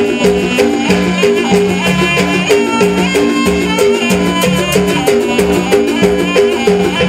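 Jaranan dance music from a gamelan-style ensemble: a repeating pattern of struck gong-chime notes and drum strokes at a steady beat, with a high melody that bends in pitch above them.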